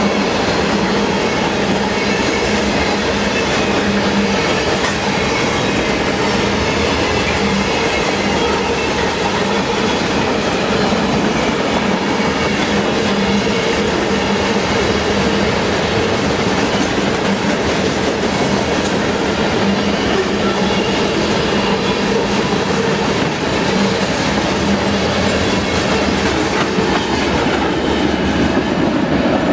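A freight train's tank cars and covered hoppers rolling past at close range: loud, steady noise of steel wheels running on the rails.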